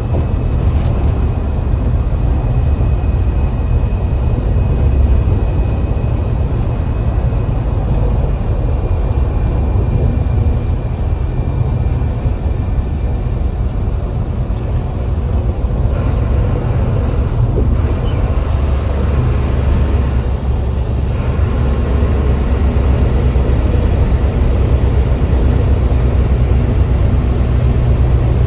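Mercedes-Benz bus's diesel engine pulling steadily, heard inside the driver's cabin as a loud, constant low drone. About halfway through, a high thin whistle comes in, wavers up and down and drops out for a few seconds.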